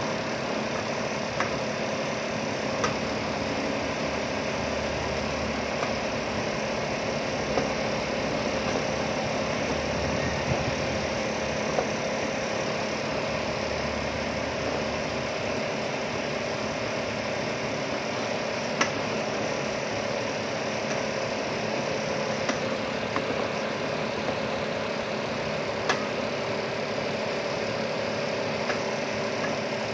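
Pork intestines frying in a stainless-steel pan against a steady machine hum. Now and then a wooden spatula gives a sharp tap against the pan as the pieces are stirred.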